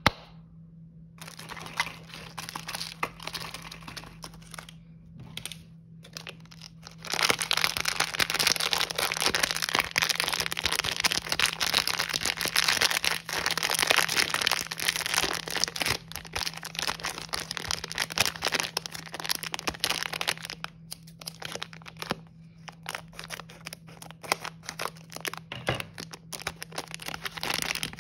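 Clear plastic candy packaging crinkling under the hands: light, scattered rustling at first, then dense, loud crinkling of a plastic bag of marshmallows from about seven seconds in, thinning out to sparser crinkles later.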